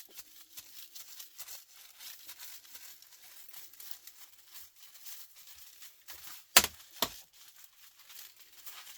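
Bench work on the parts of a dismantled fluorescent light fitting: a steady patter of light scraping and crackling, broken by two sharp knocks in quick succession about two-thirds of the way through.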